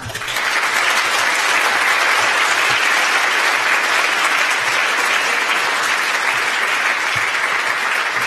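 A large audience applauding, the clapping starting suddenly and holding steady.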